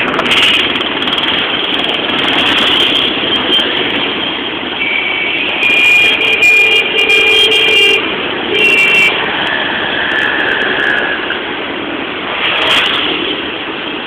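Busy city road traffic, a steady rumble of engines and tyres. A vehicle horn honks for about three seconds near the middle, then gives a short second honk, with a fainter tone just after.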